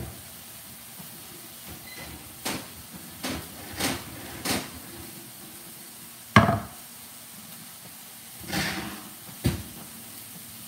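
Kitchen cookware knocks and clanks as a heavy enamelled skillet is handled, with one loud thud about six seconds in as the skillet is set down on a wooden cutting board, and a couple more knocks near the end.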